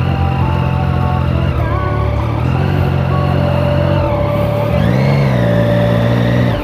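Yamaha XJ6 motorcycle's inline-four engine running at low revs as the bike rolls slowly across grass, with a short rise and fall in revs about five seconds in.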